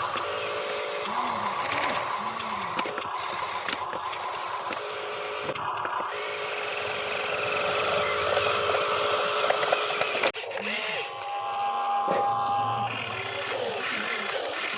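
Small electric motors of toy RC construction vehicles whirring, with the whine starting and stopping several times, over voices.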